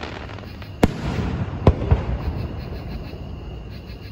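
Aerial firework shells bursting with sharp bangs: one about a second in, then two close together near the two-second mark, over a continuous rumble and crackle from the ongoing display.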